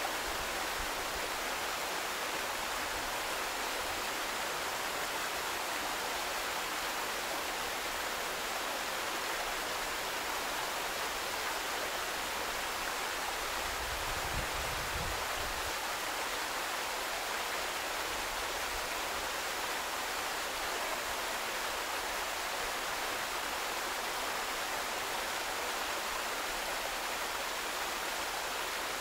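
Water falling in several thin streams down a stone wall into a pool, a steady splashing.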